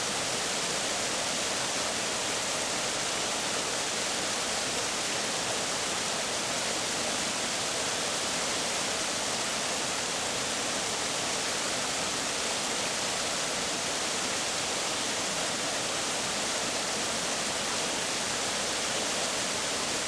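Waterfall and jungle river water rushing: a steady, unbroken rush.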